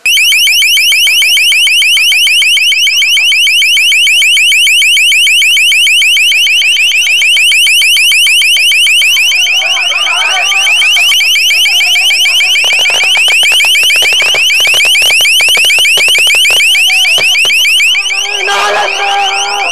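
Loud electronic alarm sounding a fast, repeating rising sweep, cutting in abruptly and holding steady throughout. Shouted voices come through faintly, and knocks come in the second half.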